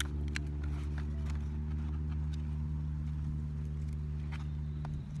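Paper and tape being handled and pressed down inside a cardboard box, heard as scattered light clicks and crackles. Under them a steady low hum runs and fades near the end.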